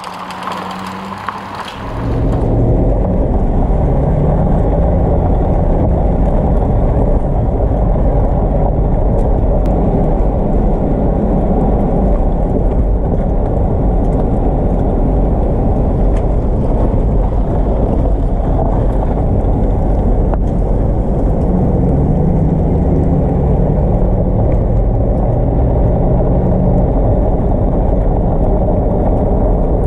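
Pickup truck towing a loaded utility trailer, driving along: a steady low rumble of engine and road noise, picked up by a camera mounted on the back of the truck. The rumble starts about two seconds in, after a quieter opening.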